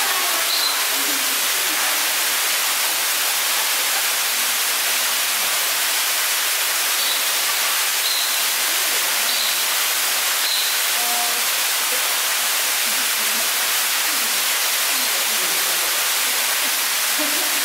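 Steady rush of falling water, an even hiss that does not change, with a few faint short high chirps in the middle.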